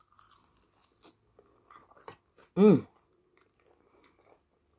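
Close-miked biting and chewing of crispy fried chicken: a bite into a drumstick, then faint crunches and wet mouth sounds, with one brief vocal sound from the eater a little past halfway.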